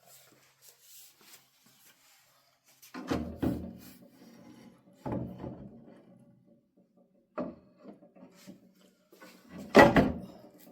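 Hardwood board being handled: it is slid and set down with a few knocks and scraping rubs, spaced a couple of seconds apart. The loudest knock comes near the end.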